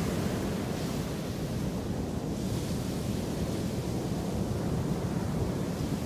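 Ocean surf breaking and washing up onto a sandy beach: a steady, even rushing of waves.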